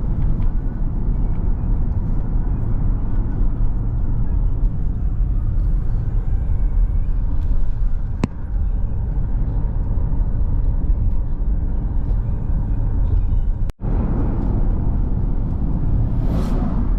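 A car driving along a street: steady low rumble of road and engine noise, with a single click about eight seconds in and a momentary gap in the sound near the end.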